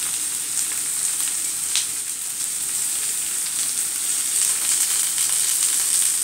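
Boiled potatoes and sliced red onion frying in oil in a pan: a steady sizzle with a few faint crackles.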